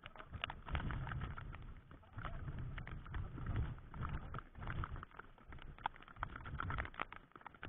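Wind buffeting the microphone in uneven gusts, with scattered light taps of raindrops on the camera.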